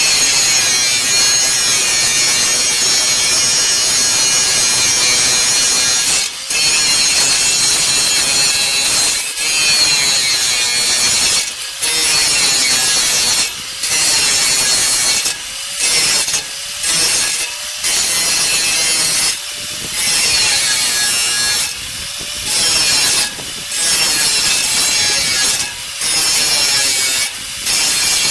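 Electric angle grinder cutting and grinding steel on a dump truck's old exhaust, sparks flying. It runs steadily under load at first, then from about six seconds in is lifted off and put back every second or two, its whine climbing in pitch each time it comes off the metal.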